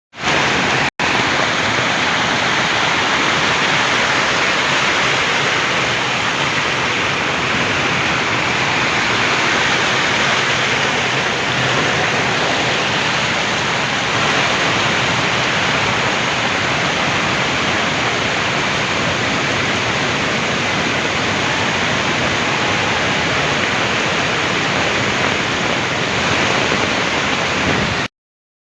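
Heavy rain falling as a loud, steady rushing hiss. It cuts out for an instant about a second in and stops abruptly near the end.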